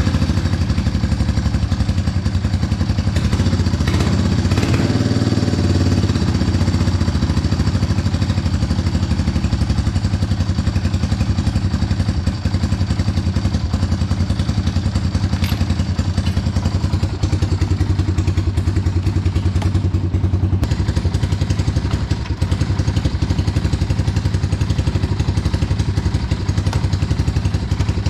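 Honda ATC 250ES Big Red three-wheeler's air-cooled single-cylinder four-stroke engine idling steadily with even, rapid exhaust pulses. It has just been started for its first run after a clutch, clutch springs and one-way bearing rebuild, and is running to check the new case gasket for oil leaks.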